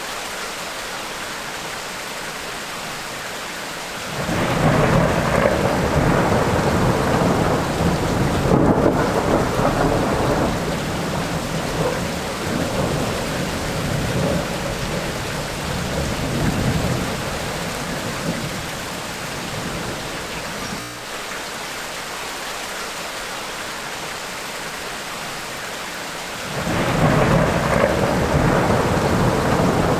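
Tropical rainstorm: steady rain hiss, with a long low roll of thunder that starts about four seconds in and rumbles on for about fifteen seconds before fading back to rain, then a second roll of thunder beginning near the end.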